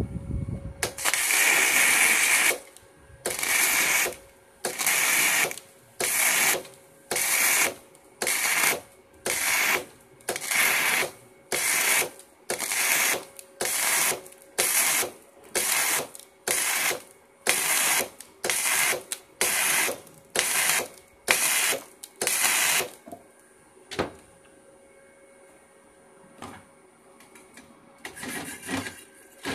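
Flux-core MIG welding arc from a homemade MIG conversion head on a stick welder, struck in about twenty short bursts, roughly one a second, as the gun trigger is pulsed to stitch-weld a steel square tube. The arc stops about 23 seconds in.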